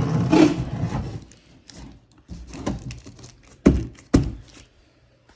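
A heavy object being lifted with a strained grunt, then knocked about and set down, ending in two loud thuds about half a second apart.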